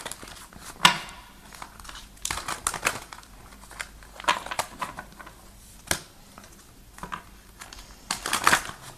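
A deck of tarot cards being shuffled by hand: irregular bursts of papery rustling and sharp card snaps a second or two apart, the busiest near the end.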